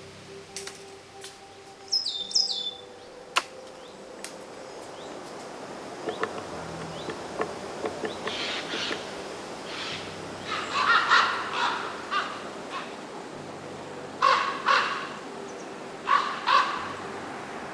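Forest ambience with wild birds calling: a pair of high falling chirps about two seconds in, then from about halfway a run of harsh, raspy calls, several coming in pairs, over a steady outdoor background.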